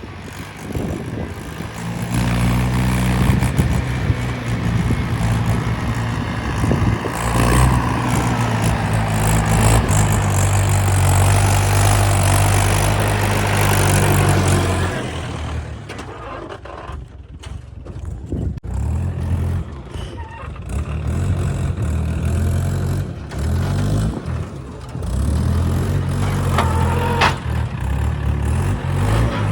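Diesel engine of heavy earth-moving machinery running under load, with a loud rushing noise over it from about two seconds in. The engine eases off around the middle, then picks up again.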